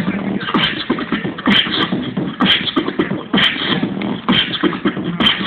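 Live beatboxing providing the beat for breakdancing: a steady rhythm of mouth-made drum sounds with a sharp hit about once a second, played loud through a small amplifier.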